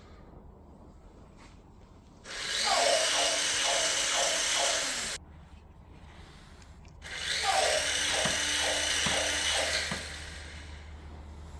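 Small electric motor and plastic gearbox of a remote-controlled toy robot running in two bursts of about three seconds each, a whine that spins up and winds down with a rhythmic clatter of the moving parts.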